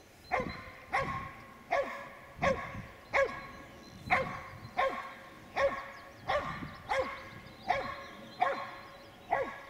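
Karelian bear dog bay-barking at wild boar: a steady, regular series of loud barks, a little more than one a second, holding the boar at bay.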